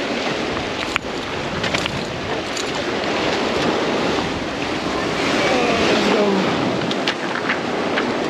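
Sea waves breaking and washing over the boulders of a rock jetty, a steady rushing surf, with wind buffeting the microphone.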